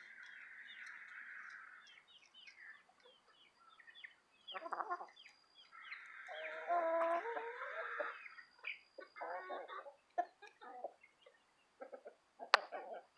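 Domestic chickens clucking and calling close to the microphone, with a longer, louder run of calls between about six and eight seconds in. A sharp tap near the end is the loudest single sound.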